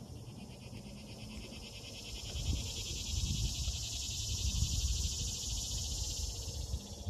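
A high, rapidly pulsing insect buzz, faint at first, swelling about two and a half seconds in and cutting off near the end, over an irregular low rumble.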